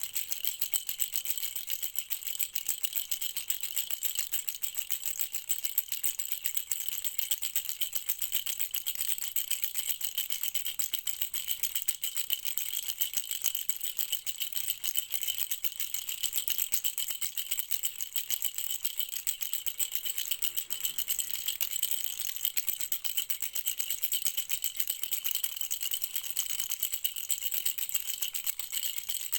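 Baby rattle shaken quickly and without pause: a steady, dense, high rattling.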